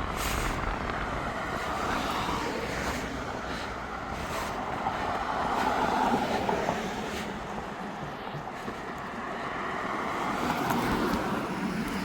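Continuous rushing road noise of passing motor traffic heard during a bicycle ride, with wind on the microphone. The noise swells about six seconds in and again near the end.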